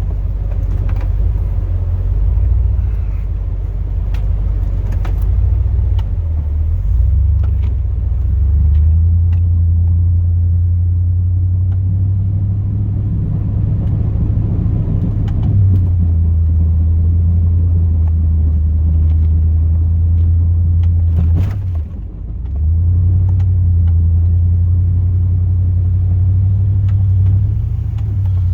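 2002 Chevrolet Silverado's 8.1-litre big-block V8 running steadily while the truck pushes snow with its plow, a low drone that shifts pitch a few times and drops away briefly about 22 seconds in. A few faint sharp clicks sound over it.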